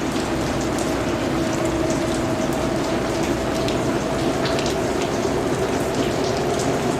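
Heavy rain shower falling steadily: a dense, even hiss of rain with scattered sharper drop ticks, over a faint steady hum.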